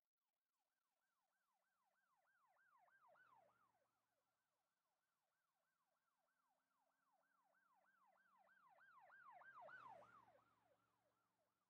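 Faint siren in a fast yelp pattern, a falling sweep about three times a second, growing louder about three seconds in and again more strongly near the end before fading.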